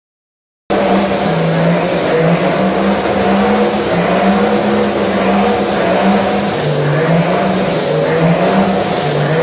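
Toyota Land Cruiser 70-series ute's 1HD-FTE turbo-diesel held at high revs in a burnout, its note rising and falling as the throttle is worked, over the continuous screech of spinning rear tyres. It cuts in abruptly less than a second in.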